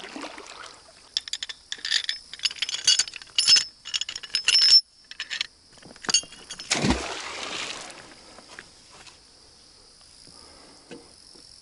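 Metal folding grapnel anchor being opened by hand: its flukes and sliding collar clink and click sharply, with a bright metallic ring, over several seconds. About seven seconds in comes one louder thump with a short wash of noise.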